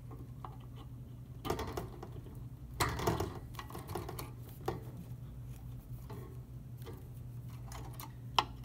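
Power supply cable connectors being handled and pushed into the plastic sockets on the Antminer A3's boards: rustling of the cable bundle and small plastic clicks, with one sharp click near the end as a connector snaps into its slot. A steady low hum runs underneath.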